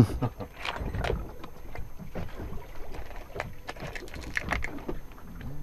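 Boat sitting on open water: a low wash of water and wind on the microphone, with scattered light clicks and knocks on board.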